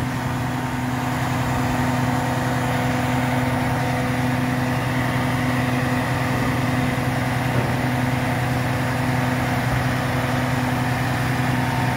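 Grapple truck's diesel engine running steadily at idle, driving the hydraulic knuckle-boom loader as it swings a stick of rail, with a steady hum throughout.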